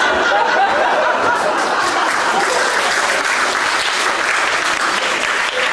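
Theatre audience applauding with dense, steady clapping, a few voices laughing in the first second.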